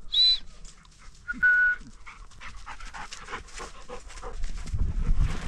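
Labrador retriever panting close to the microphone, with two short steady high-pitched tones in the first two seconds, the second lower than the first. Heavier movement noise builds near the end as the dog moves off.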